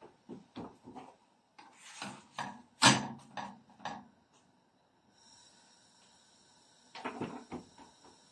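Hands pressing, patting and sliding dough on a wooden board, irregular soft knocks and rubs in two bursts, with one sharp knock about three seconds in.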